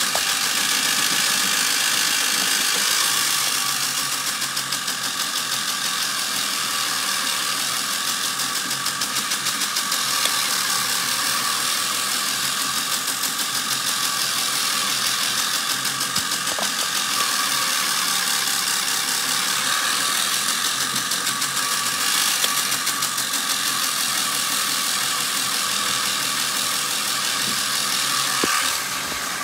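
Tractor engine running steadily under way, with a fast, even pulsing and a mechanical clatter; the level drops slightly near the end.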